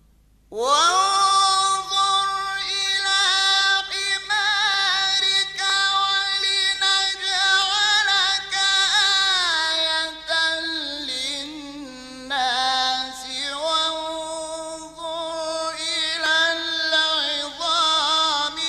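An Egyptian Quran reciter's voice in murattal-style tilawa, chanting long, held, melismatic phrases high in the voice with fine wavering ornaments. It begins after a moment's silence, and the line steps down to a lower pitch about ten seconds in.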